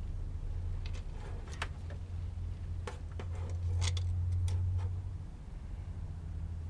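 A handful of short, sharp clicks and taps, spaced irregularly over the first five seconds, from handling battery leads and connectors, over a steady low rumble.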